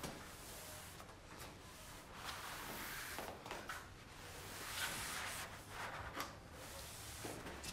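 Chalkboard eraser rubbed across a blackboard in several strokes: a soft, scratchy wiping that swells and fades.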